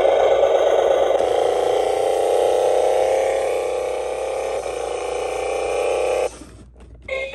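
Battery-powered toy garbage truck playing its electronic sound effect through its small built-in speaker, a steady noisy rumble that cuts off suddenly about six seconds in. A short electronic tune starts right at the end.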